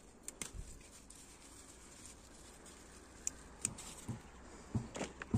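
Faint rustling among bean plants: scattered light clicks with a few soft thuds, busier about four seconds in.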